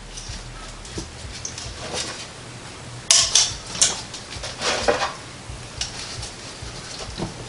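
Clatter and knocks of metal cookware as beef back ribs are lifted out of a metal roasting pan and set into the stainless-steel inner pot of an Instant Pot, with the loudest clatter about three seconds in and a scraping rattle near five seconds.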